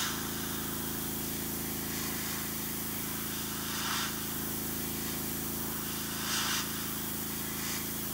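Gravity-feed airbrush spraying thinned clear paint in short hissing bursts, about five of them, roughly every couple of seconds, to build colour up gradually. A steady low hum runs underneath.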